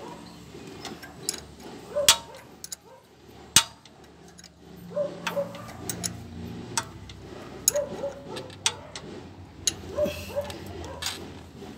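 Ratchet wrench and hand tools on a Honda TMX motorcycle's kickstarter: scattered metallic clicks and clanks at an uneven pace. The loudest clank comes about three and a half seconds in.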